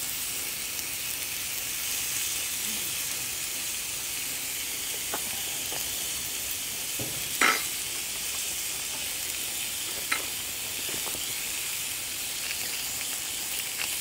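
Beef steaks sizzling on a thick iron griddle plate: a steady high hiss, with a few sharp pops, the loudest about halfway through.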